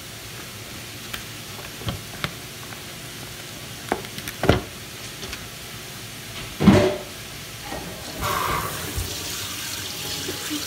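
Kitchen clatter of dishes and utensils, a few separate knocks with the loudest about two-thirds of the way in. Then a tap starts running about 8 seconds in. Ham frying in a pan sizzles steadily underneath.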